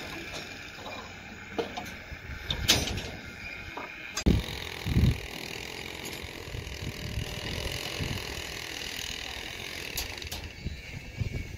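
Construction-site background noise on a rebar deck, with a sharp metallic knock and then two heavy thumps close together about four to five seconds in.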